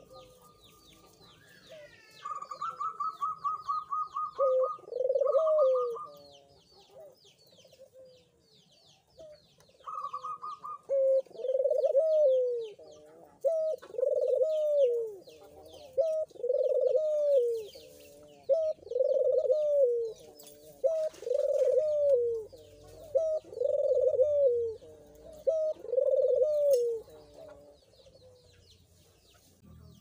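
Collared dove (puter) cooing: a few scattered coos, then a steady run of rolling coos about one every second and a half through the second half. A short fast trill sounds twice early on, and small birds chirp faintly behind.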